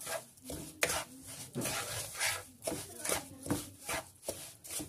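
Wooden spoon scraping and stirring roasted semolina and brown sugar around a pan, in quick repeated strokes about two a second.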